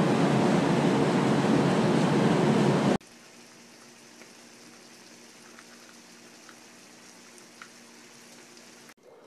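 Loud wind noise buffeting the microphone for about three seconds, cutting off abruptly. It gives way to a quiet, steady sizzle of diced chicken cooking in hot sauce in a skillet, with a few faint pops.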